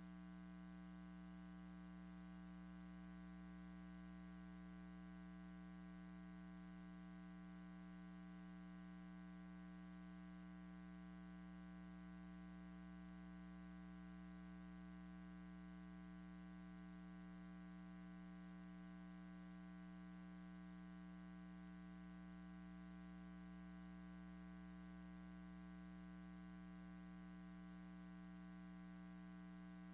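Near silence with a steady electrical hum and faint hiss.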